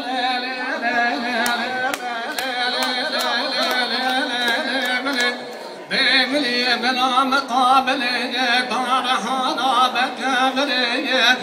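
A man singing an ornamented, wavering folk melody into a microphone, amplified through a PA. He breaks off briefly about five and a half seconds in, then carries on.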